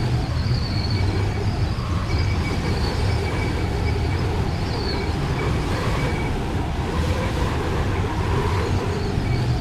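Steady low vehicle rumble with a faint, on-and-off high whine above it.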